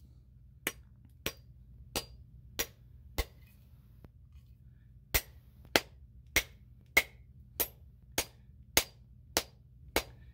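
Rubber mallet tapping the end of a new wooden handle to drive it into an old Stanley half hatchet head, making sharp, even knocks about every 0.6 s: five light taps, a two-second pause, then nine firmer ones.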